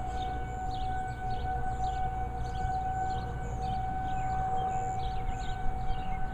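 Outdoor tornado warning siren sounding one steady, unwavering tone: a routine monthly test of the warning system.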